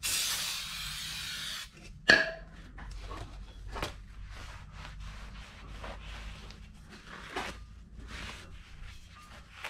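Aerosol brake cleaner sprayed in one steady hiss of about a second and a half onto a new brake rotor to strip its shipping coating, cutting off suddenly. About two seconds in comes a single sharp clank with a brief ring, then quieter handling knocks and rubbing.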